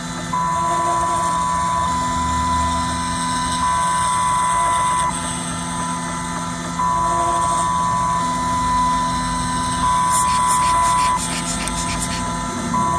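Desktop CNC milling machine grinding down a phone IC. The spindle runs steadily while the stepper motors whine in steady tones that switch pitch every second or two as the cutting head sweeps back and forth over the chip.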